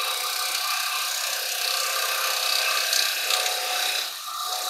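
Carbide woodturning tool cutting the outside of a spinning silver birch bowl on a lathe: a steady scraping rush of a light finishing cut taking off fine wisps, easing briefly about four seconds in.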